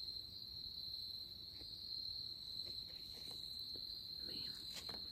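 A cricket trilling steadily on one high note, with a few faint rustles and ticks underneath.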